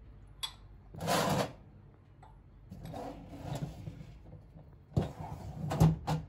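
Porcelain tea cups and saucers being taken out of a kitchen cabinet and set down. There are a few knocks, scrapes and light clinks, and the loudest knocks come near the end.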